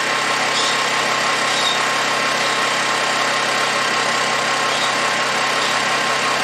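Honda EU2200i inverter generator's single-cylinder engine running steadily on propane through a conversion kit.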